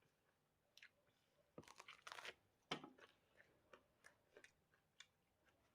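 Faint, close chewing of a mouthful of burger: a scatter of short soft crunches and mouth clicks, busiest about two seconds in.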